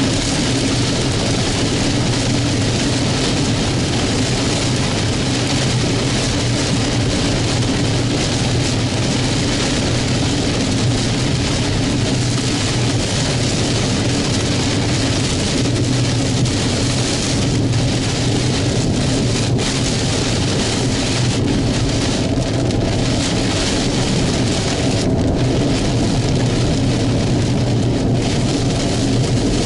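Heavy rain and wind beating on a moving car, heard from inside the cabin over the steady drone of the engine and tyres.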